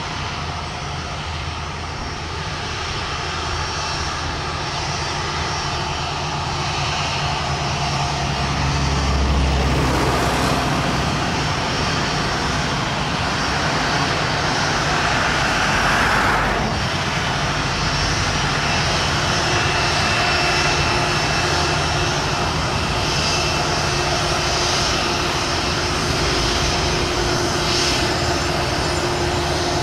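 Airbus A330-900neo's Rolls-Royce Trent 7000 turbofans running at low thrust as the airliner taxis slowly past: a steady jet whine and rush with faint steady tones in it.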